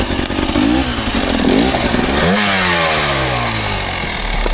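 A dirt bike engine revving in swells under throttle: the pitch climbs for about a second and a half, drops, then rises again and falls away. Clattering clicks run through it, typical of working the bike over an obstacle on the trail.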